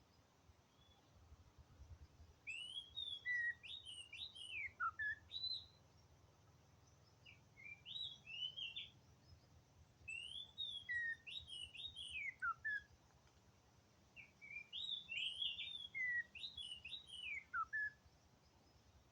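Oriental magpie-robin (kacer) singing: four bouts of quick rising and falling whistled notes, each a few seconds long, with short pauses between them.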